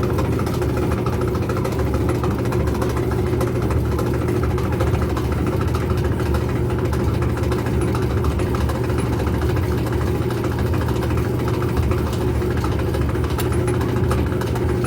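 Whirlpool gas clothes dryer running, a steady mechanical hum from the motor and turning drum. The noise it makes while tumbling comes from a part at the belt tensioner that needs cleaning and lubricating.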